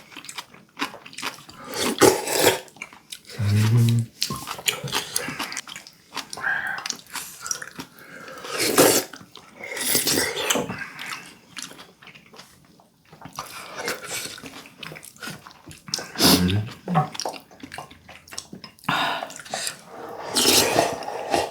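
Close-up eating sounds of duck soup and rice porridge: wet slurping and chewing, with irregular short clicks and a couple of brief low hums.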